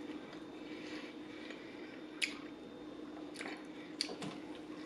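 Close-miked chewing of a bacon cheeseburger: soft, wet mouth sounds with a few sharp smacks, the clearest about two seconds in and more around three and a half and four seconds.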